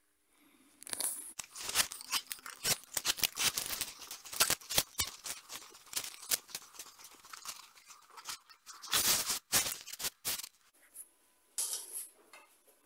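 Port Orford cedar wooden arrows being pulled out of a foam target and handled, a dense run of scrapes and clicks lasting about nine seconds, loudest near the end before it dies away.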